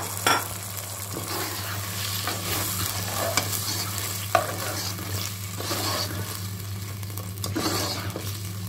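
Vegetables in sauce sizzling in a stone-coated wok as a slotted metal spoon stirs them, scraping and clacking against the pan, with the sharpest clacks near the start and about four seconds in. A steady low hum runs underneath.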